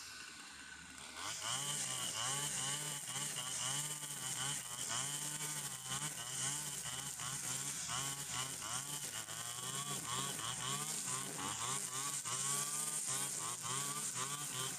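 Stihl FS 120 two-stroke brush cutter engine, eased off toward idle for about a second, then revving up and down over and over as the blade sweeps through overgrown cogon grass.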